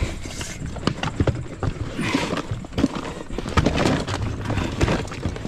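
Irregular crackling, creaking and knocking from gear in a half-deflated inflatable fishing boat as the angler shifts about in it; the boat has lost so much air that its bench has dropped out.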